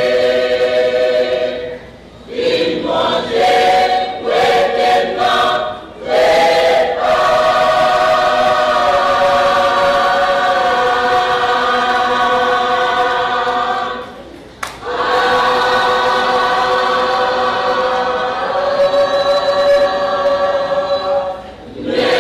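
Large choir singing under a conductor: short, choppy phrases a couple of seconds in, then long held chords, with a brief break about two-thirds of the way through.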